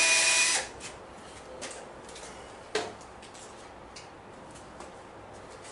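Cordless drill whining as it bores a pilot hole in wood, stopping about half a second in. A few light knocks follow, with one sharper knock near the middle.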